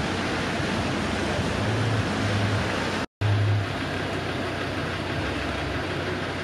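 Steady street noise of traffic on a wet road, with a low engine hum that comes and goes. The sound drops out completely for a moment about three seconds in.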